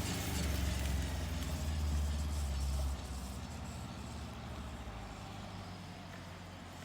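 Honda CBR600F2 motorcycle's inline-four engine running, its sound dropping sharply about three seconds in and then fading steadily.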